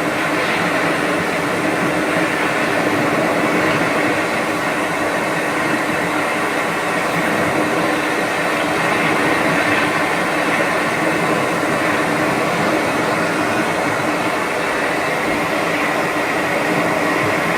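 Steady, unchanging hum of rushing noise, a constant sleep-sound drone with no rhythm or breaks.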